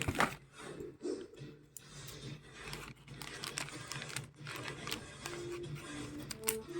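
Product packaging being handled and opened: rustling, crinkling and tearing with many small clicks and taps.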